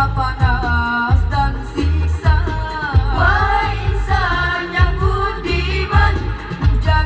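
A group of boys singing into microphones over amplified backing music with a heavy, steady bass beat, heard through a PA.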